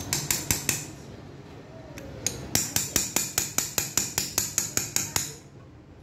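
Quick, light metallic tapping of a small steel tool on a motorcycle piston at its wrist pin: a short run of taps, then after a pause of about a second and a half a longer, even run of about six taps a second that stops just after five seconds in.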